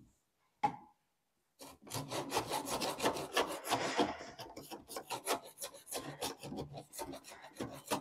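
Hand file rasping back and forth on the edge of a freshly cut 57 mm hole in a plastic 110 mm soil stack pipe, deburring it after the hole cutter. A single knock comes just under a second in; the quick filing strokes start about a second and a half in, four or five a second.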